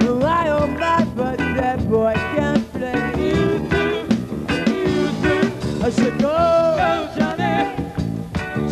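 Live rock band playing, with a lead melody line bending and sliding in pitch over a full, steady backing.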